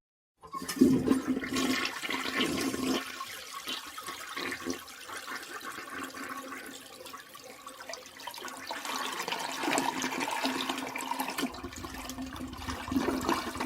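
A toilet flushing: a sudden rush of water starts about half a second in and eases after a few seconds into a quieter flow, which swells again near the end.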